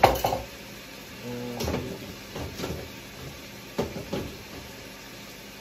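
A sharp knock at the start, then several lighter knocks and bumps as a small wooden wall decoration is handled and hung back on the wall.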